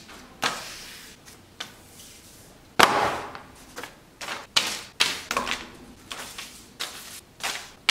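Envelopes and mailers landing one after another on a wooden table: about ten papery slaps, each with a short slide, the loudest about three seconds in.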